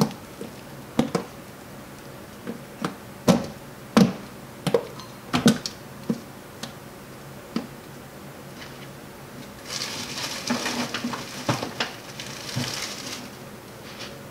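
Crushed apple pulp being swept by hand off the steel plate of a hydraulic press: a run of sharp knocks and splats as handfuls of pulp are pushed off and drop. About ten seconds in there are a few seconds of rustling noise.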